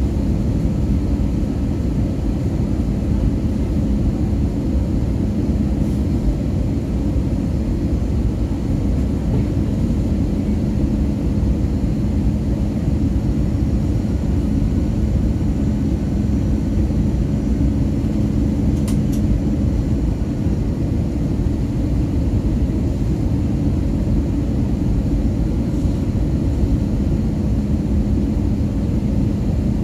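Airbus A320 engine and airflow noise heard inside the cabin, a steady low rumble with a constant hum, as the airliner descends toward landing. A faint brief click is heard about two-thirds of the way through.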